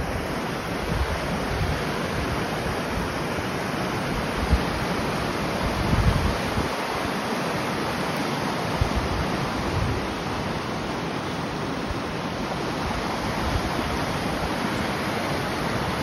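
River rapids rushing over rocks: a steady, full whitewater roar. A few brief low rumbles on the microphone come through, the strongest about four and a half and six seconds in.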